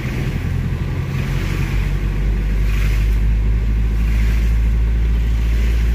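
Vehicle engine and road noise: a steady low rumble that grows louder about two seconds in.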